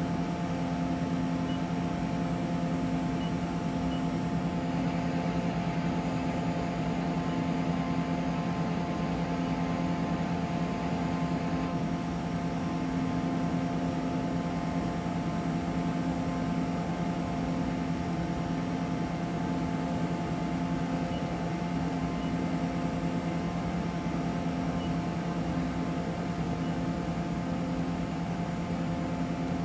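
Mori Seiki SL-154SY CNC lathe running: a steady mechanical hum holding several fixed tones, its level unchanging throughout.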